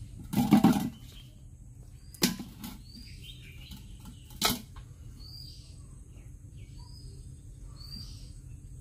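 Wet handling of freshly caught fish and prawns being sorted into a metal pot of water: a loud clatter about half a second in, then two sharp knocks about two and four and a half seconds in. Short high bird chirps repeat every second or so throughout.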